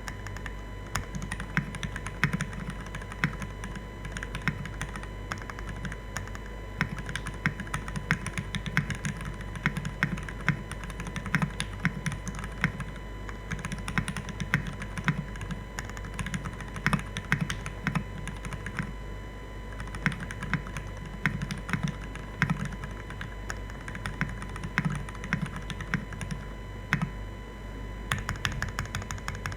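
Typing on a top-mounted Aksara CE custom mechanical keyboard with lubed Cherry MX Black Hyperglide linear switches, an aluminium plate and PBT keycaps: a steady stream of keystrokes with a few short pauses and a faster run near the end.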